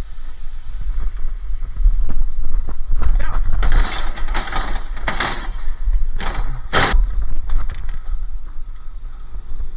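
Scrap items being handled and shifted: a run of scraping and clattering noises about four to seven seconds in, the sharpest one near seven seconds, over a steady low rumble.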